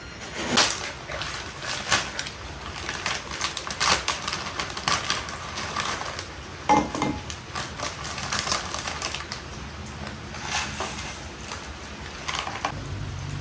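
Small packets being torn open and crinkled by hand, with scattered clicks and light knocks against a ceramic bowl; one sharper clink about seven seconds in.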